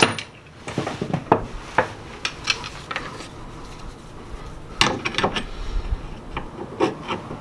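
Irregular metallic clinks and clicks of a hand wrench being fitted and worked on bolts under a car at the rear differential, the loudest cluster about five seconds in.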